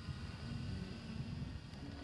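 Wind buffeting the microphone with a low rumble, over a faint steady high-pitched whine of several tones that fades near the end.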